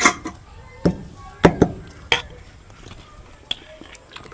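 Close-miked eating: a handful of sharp, irregular crunches and mouth noises from someone biting and chewing food, the loudest near the start and around a second and a half in.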